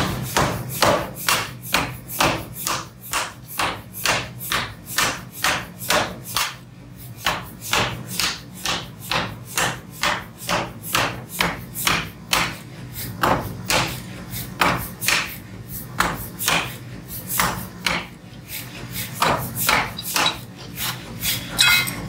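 Hammer blows on metal being forged, struck in a steady rhythm of about two to three a second, with a short pause about a third of the way in.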